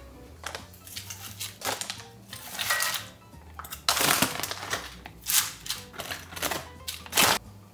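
Clear plastic bag of dried mafaldine pasta crinkling as the long stiff ribbons are tipped out of it into a pot of water, in a run of irregular rustles, the loudest near the end.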